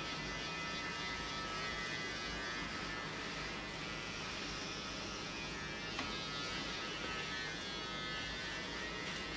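Steady electrical hum and buzz with a thin high whine, with a faint click about six seconds in.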